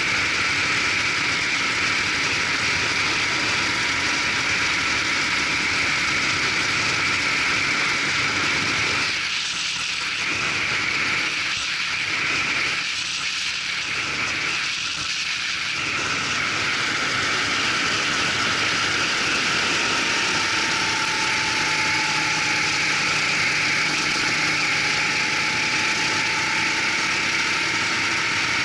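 Racing go-kart engine running under way on track, heard from the kart itself as a steady dense noise. The sound dips briefly four times in the middle, and a faint engine tone comes through in the later part.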